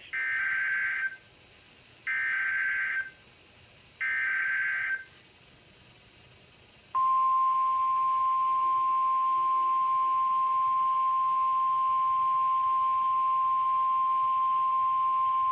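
Emergency Alert System SAME header on NOAA Weather Radio: three one-second bursts of screeching digital data about a second apart, then the steady single-pitch 1050 Hz warning alarm tone held for about nine seconds. The sequence opens a new alert message, here a severe thunderstorm warning.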